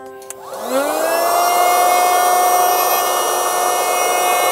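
Handheld electric air pump switched on about half a second in: its motor whines quickly up to speed and then runs at a steady pitch as it blows into the valve of an inflatable pillow.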